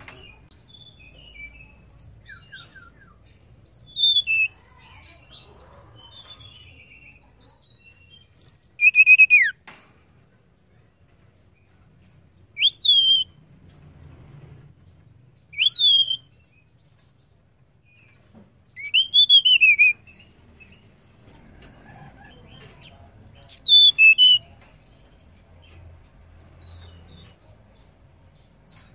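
Blue flycatcher (tledekan) giving six short phrases of high whistled notes a few seconds apart. Some notes slur sharply down and others up. The title gives these as the female's calls, played to bring a male into song.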